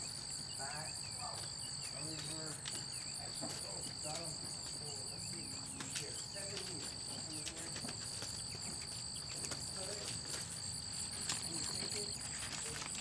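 Crickets chirring in a steady chorus: a continuous high trill with a faster pulsing buzz above it.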